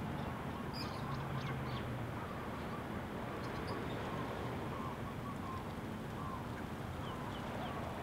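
Several small birds giving short, quick, high chirps and calls, scattered through a few seconds, over a steady background rush. A low hum fades out about two seconds in.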